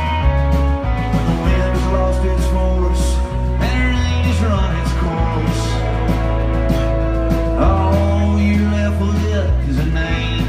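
Live country-rock band playing an instrumental passage: strummed acoustic guitar and electric guitar over changing bass notes and a steady drum beat.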